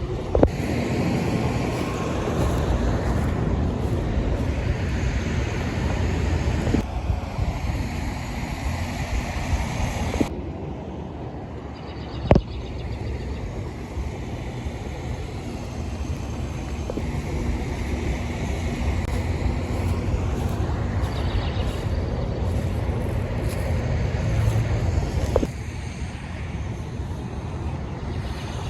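Lawnmaster lawn mower running while cutting grass, with its sound shifting abruptly a few times and a couple of sharp knocks.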